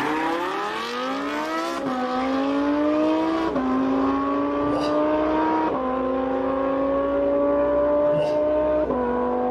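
Drag-race supercars launching from a standing start at full throttle, the engine note climbing steeply and dropping at each upshift, about two, three and a half, six and nine seconds in. The Lamborghini Huracán and the Porsche 918 hybrid are racing side by side.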